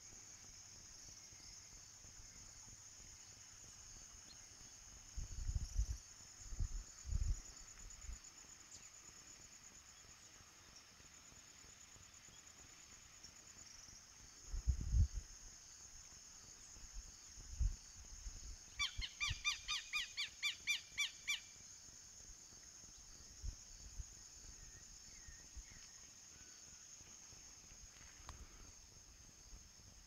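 A steady, high-pitched chorus of insects in a rural field. About two-thirds of the way through, an animal gives a quick run of about ten evenly spaced calls. Several louder low thumps on the microphone come and go.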